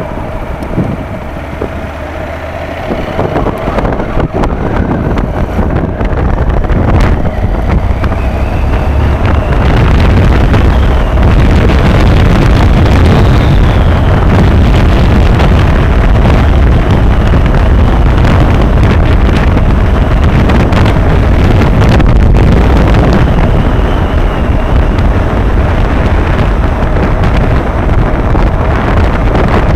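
Honda motorcycle accelerating, its engine note climbing over the first several seconds. It then settles into a steady loud cruise at road speed, with heavy wind rush on the microphone.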